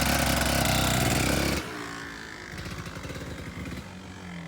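Kawasaki KDX 200 single-cylinder two-stroke dirt bike engine running loudly just after a cold start. It cuts off abruptly about a second and a half in, leaving a much quieter, rhythmic low sound.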